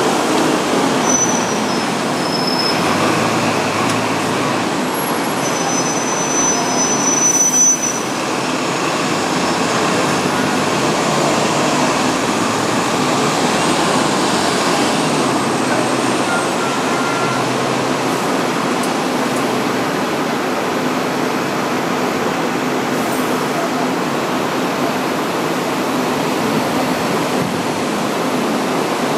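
Hong Kong double-decker tram on its street track with traffic around it: a steady rushing noise of running and street sound, with brief high squeals about a second in and again around six to seven seconds in.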